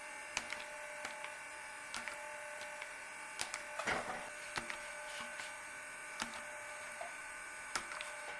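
Electric tire regrooving tool with a heated blade at work on tread rubber: a steady electrical hum with scattered small clicks and scrapes as the blade cuts and is lifted and repositioned.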